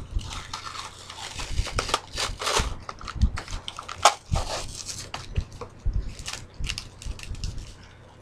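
Packaging being handled and opened by hand: irregular rustling and crinkling with a few sharper crackles. A fan hums steadily underneath.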